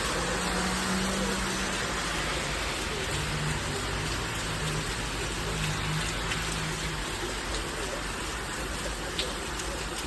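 Heavy rain falling in a thunderstorm, a steady hiss of rain on surfaces with a few sharper drip ticks near the end. A low steady hum sits under the rain and stops about seven seconds in.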